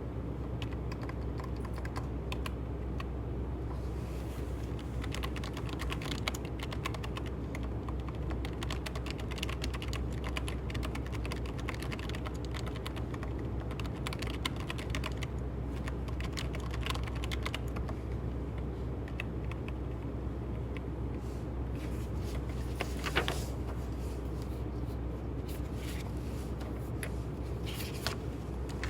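Typing on a computer keyboard: a steady run of key clicks over a low, even hum.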